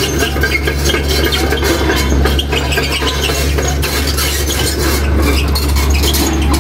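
A heavy vehicle's engine running with a steady low drone, with scattered clinks and clicks over it.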